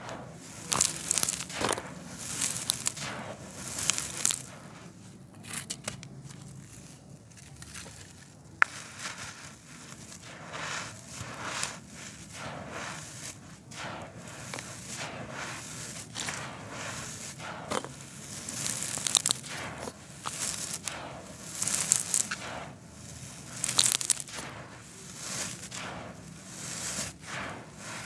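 Dry sand-and-cement concrete powder being crumbled and squeezed between bare hands. Gritty crunching and rustling comes in irregular bursts every second or two as the grains rub, crush and stream down onto the heap.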